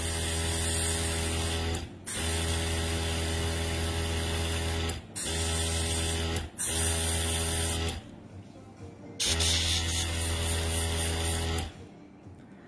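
Small airbrush compressor running with a steady hum under the hiss of air from the airbrush as it sprays nail paint. It stops briefly and restarts several times, with longer pauses of about a second near eight seconds and near the end.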